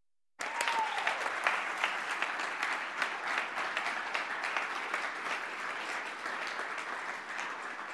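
Audience applauding: dense clapping that starts abruptly about half a second in and carries on steadily, fading just after the end.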